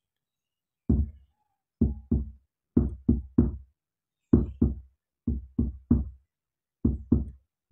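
Tawon-style bass speaker box on a sound test, playing a run of short, deep bass thumps in an uneven rhythm of single, double and triple hits. The thumps start about a second in.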